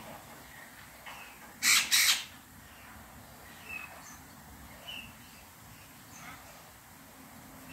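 White-fronted amazon parrots calling during mating: two loud, harsh squawks in quick succession about two seconds in, followed by a few short, faint chirps.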